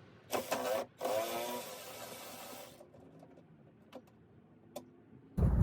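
Cordless power driver runs in two short spurts, the second about two seconds long, backing out one of the Torx bolts that hold the liftgate latch. A sudden loud low rumble comes in right at the end.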